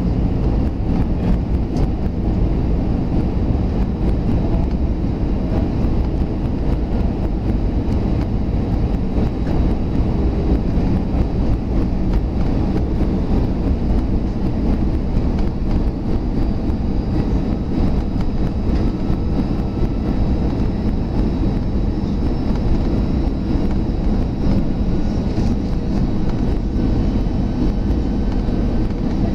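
Airbus A320 cabin noise in flight on the approach: a steady low rumble of the engines and rushing air, heard through the cabin. A faint high whine comes in about halfway through.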